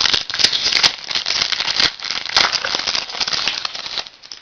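Foil trading-card pack wrapper being torn open and crinkled by hand: a dense, loud crackling full of sharp clicks that stops shortly before the end.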